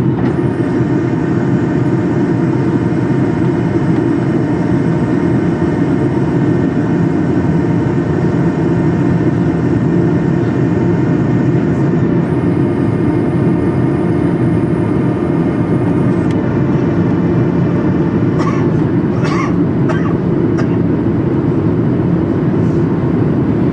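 Steady cabin noise inside a plane in flight: a constant deep rush of engine and airflow with several steady hums and whines on top. A thin high-pitched tone comes in about twelve seconds in and stops about four seconds later, and a few brief faint sounds follow near the end.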